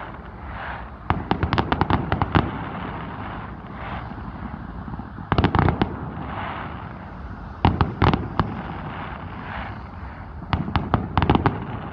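Fireworks going off in four quick volleys of sharp cracks and bangs, each volley preceded by a brief hiss.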